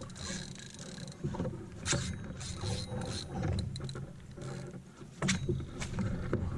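Knocks and clatter of gear on a small fishing boat over a steady low rumble, with sharp knocks about two seconds in and again about five seconds in.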